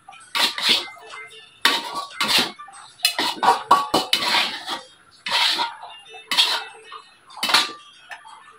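Metal ladle scraping and knocking against a metal wok and plate while scooping stir-fried green beans and carrots out of the wok, in about seven separate scrapes.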